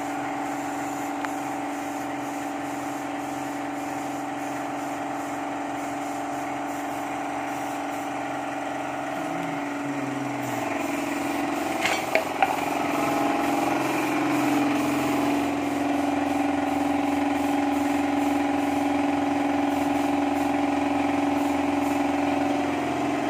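Small electric air compressor running steadily, supplying a paint spray gun. Its hum shifts in pitch about halfway through, with two sharp clicks around the same time.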